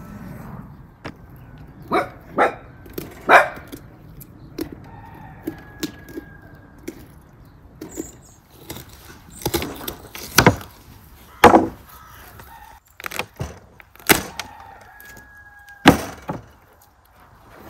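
Knife working through a raw lamb carcass on a wooden cutting board: an irregular series of sharp cracks and knocks as joints and bone give way and the meat is handled on the board, with smaller ticks between.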